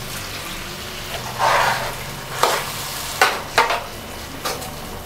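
Lukewarm water poured from a mixer jar into a hot kadhai of potato and capsicum gravy, then stirred in with a steel spatula in a few sharp scraping strokes against the pan.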